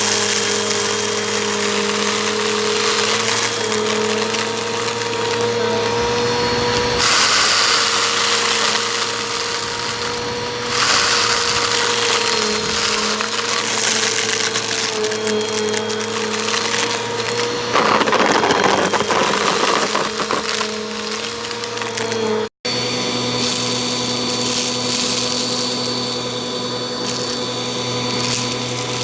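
Bissell vacuum cleaner running steadily: a constant motor hum with a hissing rush of air that swells and fades several times. The sound cuts out for an instant about three-quarters of the way through.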